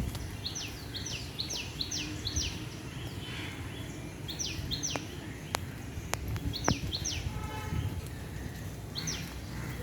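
A bird chirping in quick runs of short, falling chirps: a run of about six in the first two seconds, then shorter runs of two or three through the rest, over a steady low background rumble. A few faint sharp ticks come in the middle.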